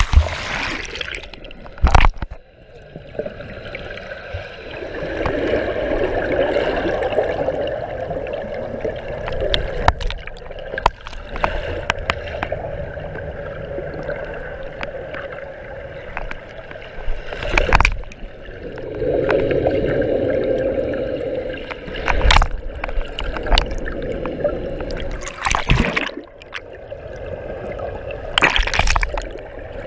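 Swimming-pool water heard from underwater: muffled rushing and gurgling that swells twice, with a few sharp splashes or knocks.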